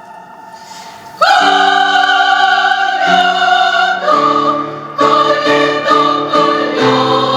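Academic women's choir singing live. It is quiet for about a second, then comes in loudly on a held chord, and from about four seconds in moves to shorter, rhythmic repeated chords about twice a second.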